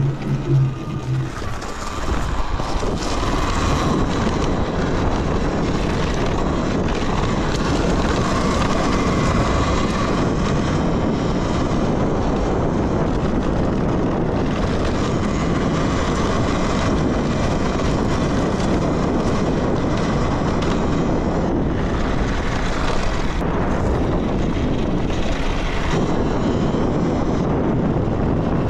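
Steady wind rush and tyre noise from a Talaria Sting electric dirt bike being ridden, with a faint steady motor whine. A low hum at the start stops about a second and a half in, and the rush builds to a steady level about two seconds in as the bike gets up to speed.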